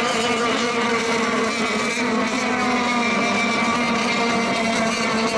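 Several radio-controlled racing boats running together during a race heat: a steady engine drone of overlapping pitches that drift slightly as the boats go round the course.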